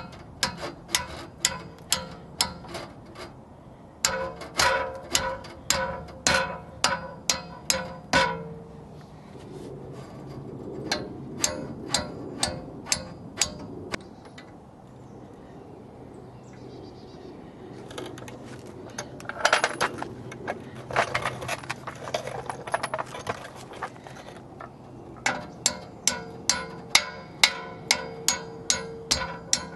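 A hammer tapping a punch against the pad retaining pin of a Mercedes W220 brake caliper: runs of sharp metallic taps, about three a second, each with a short ringing tone. Between the runs come quieter stretches and a denser patch of metal clinks.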